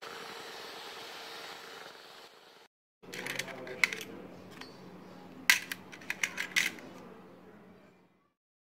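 An electric hand mixer's beaters run in a bowl of white cream with a steady motor whir that cuts off after about two and a half seconds. After a brief silence, stainless steel piping tips clink and rattle against each other and a metal bowl as they are picked through by hand, with several sharp clinks.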